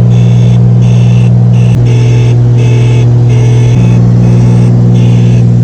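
Cessna 310's remaining six-cylinder piston engine and propeller running steadily at cruise power, heard loud inside the cabin with the other engine shut down. The engine note shifts briefly about two seconds in and settles back about two seconds later, and a high tone pulses on and off about twice a second throughout.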